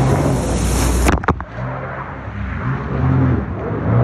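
Sea-Doo Spark personal watercraft's three-cylinder Rotax engine running hard, its pitch coming and going with the throttle, over the hiss of water spray. About a second in the sound breaks off sharply for a moment and then returns duller.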